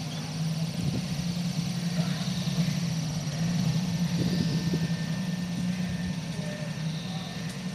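Engine of a vintage convertible car running at low speed as the car creeps across cobblestones, a steady low hum.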